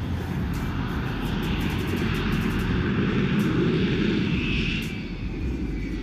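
F-35 fighter jet's engine roaring through a landing and rollout. The noise swells to its loudest about three to four seconds in, then eases off near the end.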